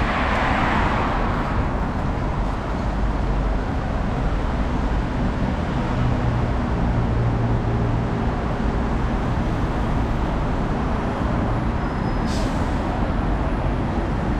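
Steady city road traffic: the low rumble of passing cars and buses, with one vehicle going by close at the start and fading away. A brief sharp hiss sounds about twelve seconds in.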